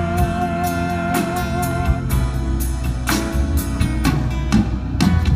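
Live rock band playing amplified music with electric guitar, bass and drum kit. A long wavering note is held through the first two seconds, over steady drum hits.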